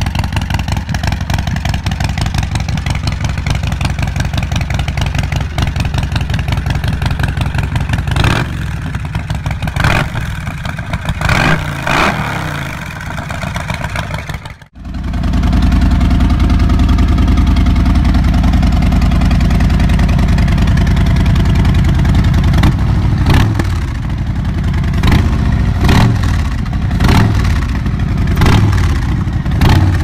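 Harley-Davidson Twin Cam 45-degree V-twin running at a lumpy idle, with its throttle blipped several times from about 8 to 13 s. About 15 s in it cuts abruptly to a Milwaukee-Eight V-twin idling with a deeper, heavier sound, revved in a series of short blips near the end.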